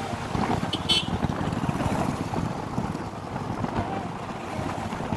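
Wind buffeting the microphone and road traffic noise from a moving two-wheeler, with a brief high-pitched beep about a second in.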